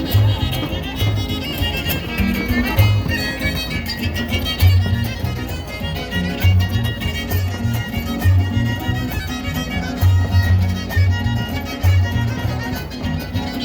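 Huasteco trio playing an instrumental passage: a violin carrying the melody over fast strumming and a plucked low bass line.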